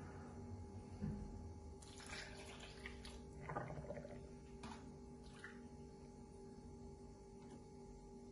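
Milk poured from a cup into a glass blender jar onto cooked rice and strawberries: faint pouring and splashing, with a few soft knocks and a steady low hum underneath.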